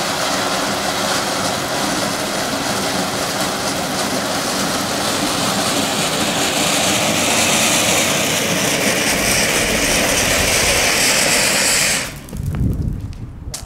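Small firework ground fountain hissing steadily as it sprays a jet of sparks, then cutting out sharply near the end as it burns out.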